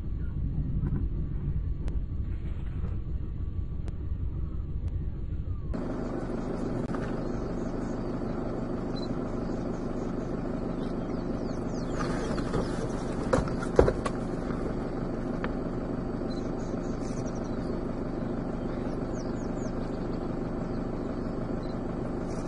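Vehicle engine idling steadily, a low rumble at first, then a steady hum for the rest. Two sharp knocks come a little past halfway.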